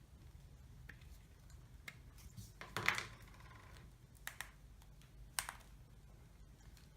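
Faint handling sounds from unboxing a pair of binoculars: a cluster of small clicks and knocks about three seconds in, the loudest, then a quick double click and a single click near the middle, over a faint low hum.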